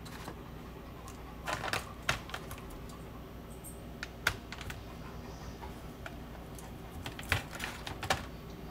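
Plastic wrapping of a block of cheese being handled: scattered sharp clicks and crinkles of fingers and long nails on the plastic, coming in two clusters, over a steady low hum.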